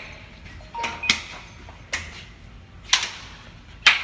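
Sharp hand slaps, four in all at about one a second, from palms meeting in slapping handshakes.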